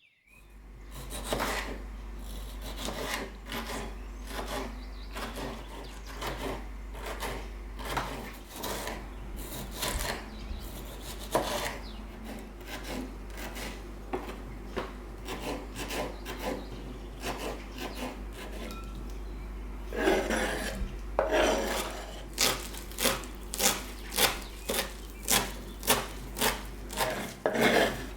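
Repeated rasping, scraping strokes of hand food preparation in a kitchen, irregular at first and then settling into a steady rhythm of a little over one stroke a second for the last several seconds.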